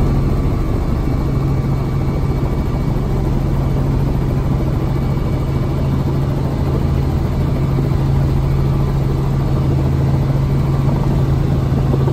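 Light helicopter's engine and rotor running on the pad, heard from inside the cabin: a loud, steady, unchanging low hum.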